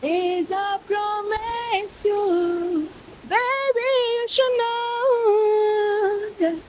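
A young woman singing an English love song unaccompanied into a handheld microphone. She sings long held notes that bend and slide, in phrases with a short break about three seconds in.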